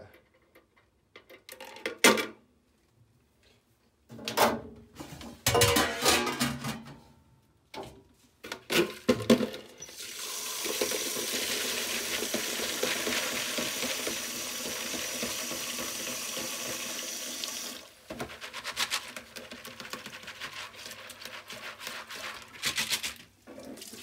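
Wire and plastic baskets and small plastic Cherry MX switch parts clattering as they are handled, then water running steadily from a hose for about eight seconds to rinse the switch parts after ultrasonic cleaning, with a thin high tone in the flow. After the water stops, wet plastic parts rattle and splash in the basket.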